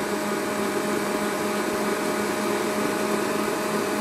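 Electric stand mixer running steadily, its motor whirring without a break as it beats cake batter.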